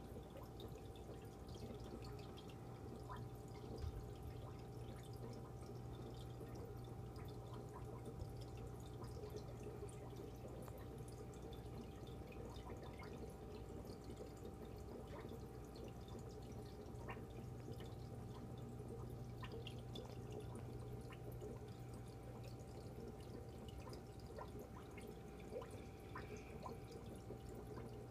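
Water trickling and dripping in an aquarium: many small scattered plinks over a steady low hum.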